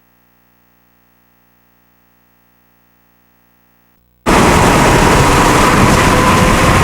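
Near silence with a faint steady hum for about four seconds, then a sudden cut to loud, steady road and wind noise from a moving car.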